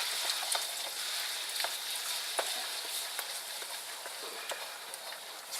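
Eggs frying in very hot canola oil in a non-stick wok: a steady sizzling hiss with scattered pops, slowly dying down.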